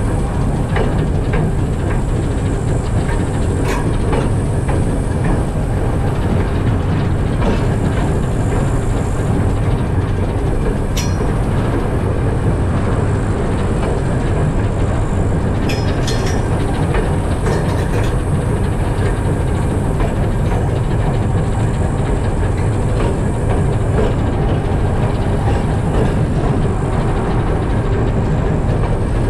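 TEM2 diesel shunting locomotive hauling freight wagons: a steady, loud engine rumble mixed with the running noise of the wagons on the rails, with a few sharp clicks.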